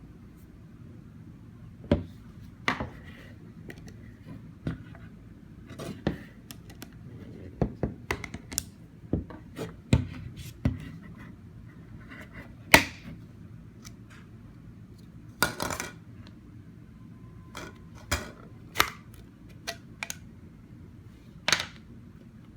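Parts of a Babycook blender bowl clicking, knocking and scraping at irregular intervals as its base and handle are worked loose and taken off, over a steady low hum.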